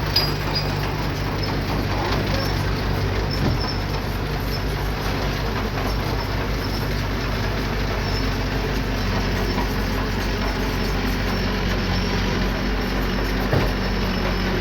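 Diesel engine of small earthmoving machinery running steadily, its note rising a little about halfway through, with a short knock just after the start and another near the end.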